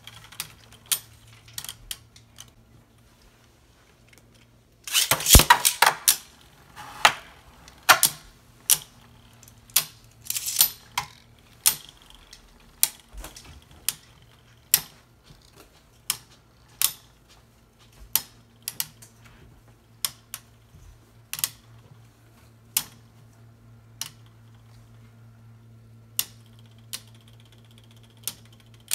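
Two Beyblade spinning tops clashing in a plastic stadium: sharp clacks every second or so, with a fast rattling run of hits about five seconds in and another around ten seconds. A steady low hum runs underneath.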